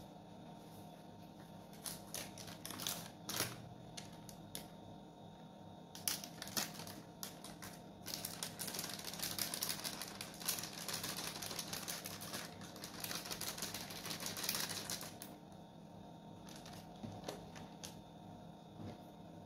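Crinkling and crackling of a plastic packet being handled and shaken out over a bowl of chicken wings, powder coating them: scattered sharp crackles at first, then dense continuous crinkling from about 8 to 15 seconds in.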